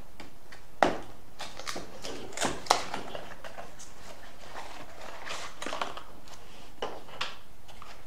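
Small cardboard box of LED headlight bulbs being opened and unpacked by hand: scattered sharp clicks and taps of the box and packaging, the loudest about a second in and near three seconds, with rustling between.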